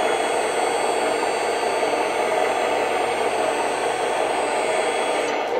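Electric hydraulic pump of a radio-controlled tipper truck running steadily, a buzzing whine as the front hydraulic ram raises the loaded dump bed. The high part of the whine cuts off near the end.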